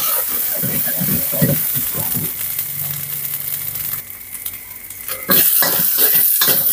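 Red curry paste sizzling in hot oil in a steel wok while a metal spatula scrapes and stirs it in quick strokes. The stirring stops about four seconds in, leaving a quieter sizzle, and resumes more loudly a second or so later.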